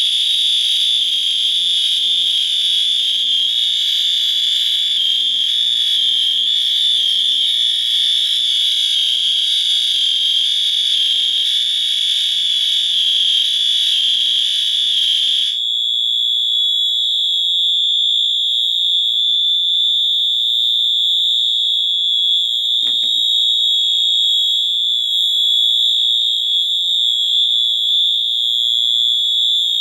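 Fire alarm sounders sounding continuously with a loud, piercing high-pitched tone. About halfway through, a harsher buzzing layer cuts out, leaving a purer whistle-like tone.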